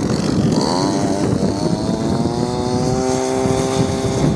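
A petrol kick scooter's small engine revs up as the rider pulls away. Its buzz rises in pitch about half a second in and then holds steady.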